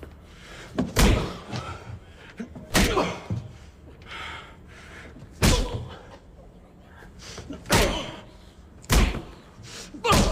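A series of about six loud, sharp slams or heavy blows, one every one to three seconds, each followed by a short ringing decay.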